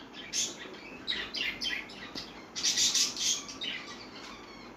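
Small birds chirping: a rapid scatter of short, high chirps, busiest around the middle, over a faint steady background hiss.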